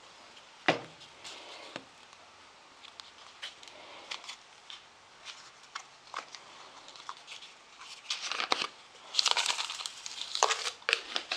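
Kitchen handling sounds: a sharp knock about a second in as something is set down on the counter, a few light clicks, then a spell of rustling and pattering near the end as a seasoning shaker is shaken over a metal pizza pan.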